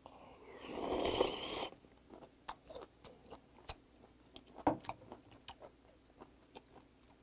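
A loud, wet slurp of stringy salted sea cucumber innards sucked up off chopsticks, lasting about a second. It is followed by chewing, with scattered wet mouth clicks and lip smacks.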